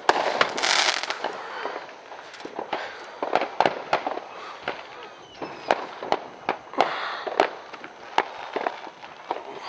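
Consumer fireworks and firecrackers going off close by: an irregular string of sharp bangs and pops, with a dense burst of crackling about half a second in.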